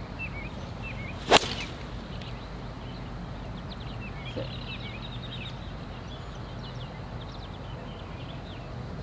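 A golf club striking a teed-up golf ball: one sharp, loud crack about a second and a half in.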